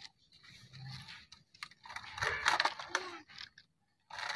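Plastic bucket of a toy excavator scraping and digging into loose gravel, with pebbles clicking and crunching. There are scattered small clicks, then a denser burst of crunching about halfway through.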